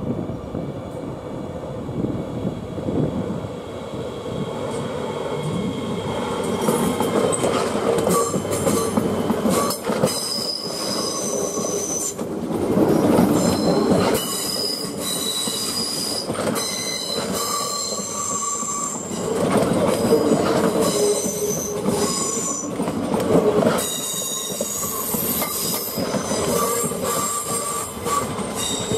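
Öresundståg electric multiple unit running slowly through the curved station track, its wheels squealing in high, wavering tones that come and go over the rumble of the wheels on the rails, with a few clacks over rail joints.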